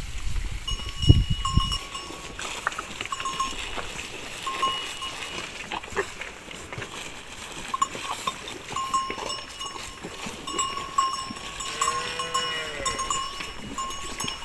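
Cattle crowding close: a cow's low moo for the first couple of seconds, then repeated short clinks of bells on the cattle as they push in, with small licking clicks and a brief rising-falling call from a calf about twelve seconds in.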